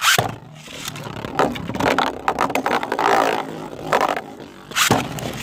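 Two Beyblade Burst tops launched into a plastic stadium, one of them a 3D-printed Drakken: a sudden launch, then the tops whirring and clattering against each other with many sharp clicks and hits, a hard hit near the end.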